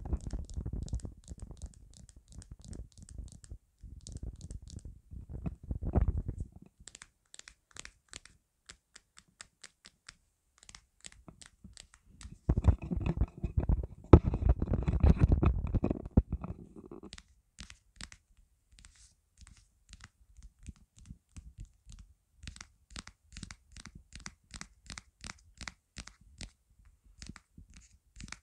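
Fingernails tapping and scratching on a phone held close to a lapel mic, making many quick dry ticks. About halfway through comes a louder stretch of rubbing and handling noise lasting a few seconds.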